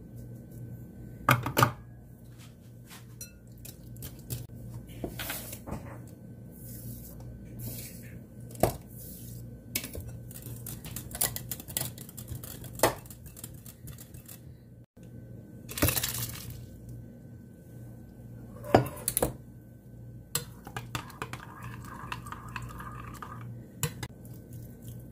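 A wire whisk beats yogurt in a glass mixing bowl, giving irregular clinks and knocks of metal on glass. Later a metal spoon stirs and scrapes through the mixture in the same bowl. A steady low hum runs underneath.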